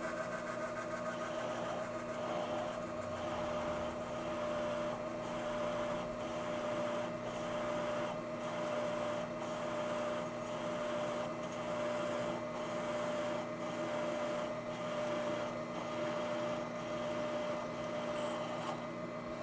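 Machine tool running steadily, with a held whine and a regular pulse about one and a half times a second.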